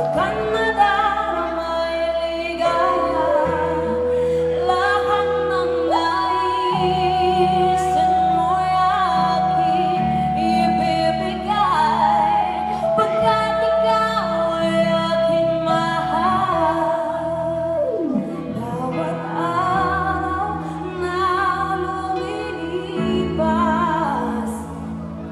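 A woman singing a ballad into a microphone over sustained instrumental backing, holding long notes with vibrato; about eighteen seconds in, one long note slides downward.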